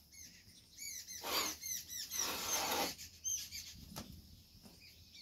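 Small birds chirping over and over in short, quick calls. Over them come two brief bursts of cloth rubbing as soil is wiped off the potted plants and their wooden stand, about one and two seconds in; the second is longer and the loudest sound.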